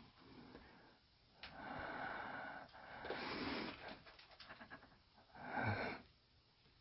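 A person breathing heavily close to the microphone: three long breaths, with a few faint clicks in between.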